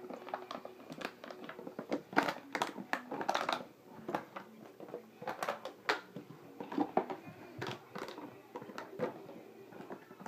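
Empty plastic water bottle crinkling and clattering as a Maltipoo puppy bites and bats it about: irregular crackles and knocks, busiest about two to three and a half seconds in.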